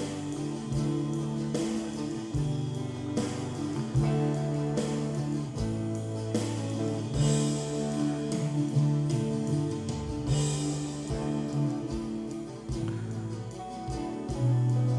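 Multitrack recording of a band played back through a digital mixer: guitar-led music over held bass notes and a steady drum beat.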